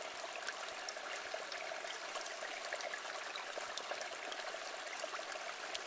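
A steady, fairly quiet hiss with many small scattered ticks, like trickling water.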